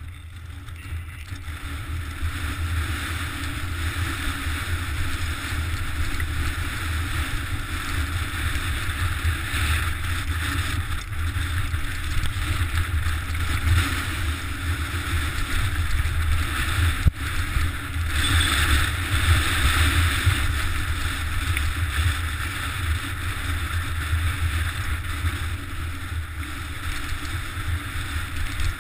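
Wind rumbling over an action camera's microphone while a mountain bike rolls fast down a loose, rocky trail, its tyres and frame rattling over the stones, with one sharp knock a little past halfway.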